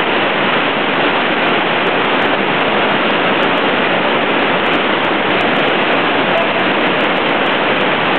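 River whitewater rapid at medium-high flow, the water rushing steadily over and around boulders.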